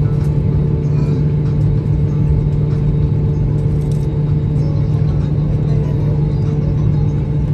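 Airbus A320 cabin noise while taxiing, heard inside the cabin: the engines running at taxi idle as a steady hum, over a low rumble from the rolling aircraft.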